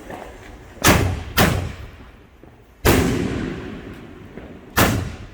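Consumer fireworks going off: four loud bangs, two about half a second apart, then one about two seconds later and another near the end, each trailing off in a long echo.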